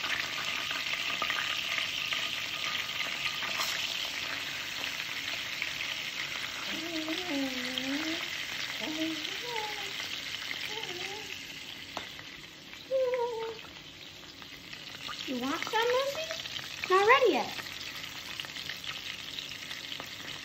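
Battered perch fillets deep-frying in hot canola oil in a cast-iron skillet: a steady sizzle that thins out in the second half. A few short sliding tones sound over it from about seven seconds in, the loudest near the end.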